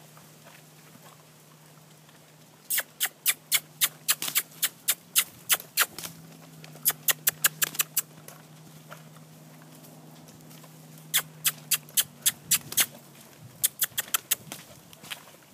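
A handler clucking with the tongue in quick runs of sharp clicks, four bursts of a second or two each, the usual cue urging a lunged horse to keep moving. A faint steady low hum runs underneath and stops near the end.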